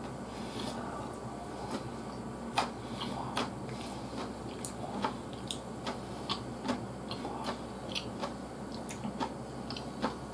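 Eating sounds: scattered sharp clicks of chopsticks tapping a bowl, mixed with chewing, over a faint steady low hum.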